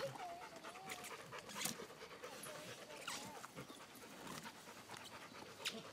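Pig working its mouth on a whole pumpkin, biting and chewing at the hard rind with breathing at the snout; a few sharp crunches stand out, about one every second and a half.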